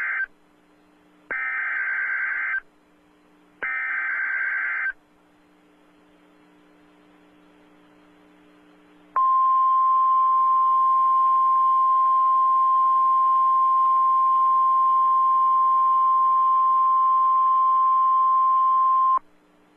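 Emergency Alert System signal on NOAA Weather Radio. The end of one SAME header data burst is followed by two more, each a harsh buzzing burst of about a second and a quarter. Then come a few seconds of near silence and the steady single 1050 Hz warning alarm tone, held for about ten seconds, which announces a severe thunderstorm warning.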